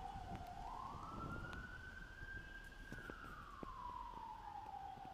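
Distant emergency-vehicle siren wailing. Its single tone rises about half a second in, holds high, falls slowly through the second half, and starts rising again near the end.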